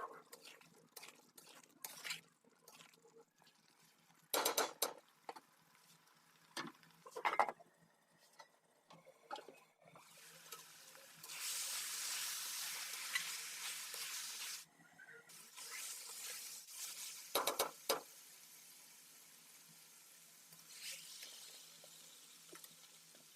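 Chicken kadhai cooking in a pan: a utensil knocking and scraping against the pan as it is stirred, then a loud sizzle about ten seconds in that drops off sharply near fifteen seconds, two more sharp knocks, and a quieter sizzle going on to the end.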